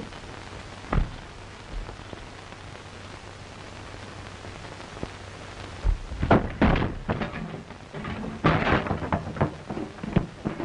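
Steady hiss of an old film soundtrack with a single thud about a second in. From about six seconds in comes a rapid run of loud crashes and bangs from a scuffle inside the house, as a man is thrown bodily out the front door.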